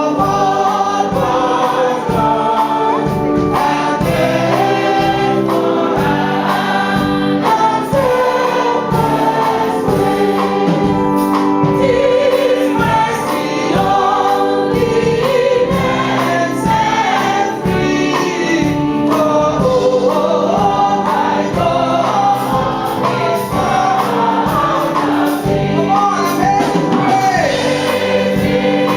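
Choir singing gospel music over a steady beat.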